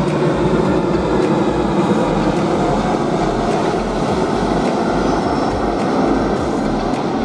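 Boeing 737 jet airliner passing low overhead on approach with its landing gear down: a loud, steady jet engine rumble that eases slightly toward the end as the aircraft moves away.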